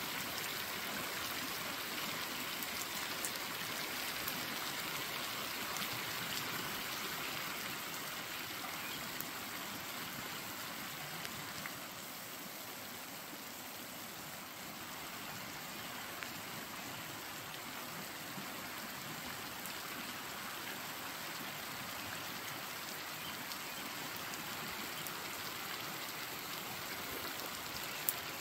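Steady hiss of rain falling on a flowing river, made of many small drops, dipping slightly in level midway and coming back.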